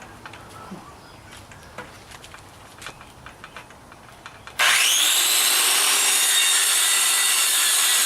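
A few light knocks and clicks of handling, then, about four and a half seconds in, an electric circular saw starts up with a rising whine and runs steadily at high pitch.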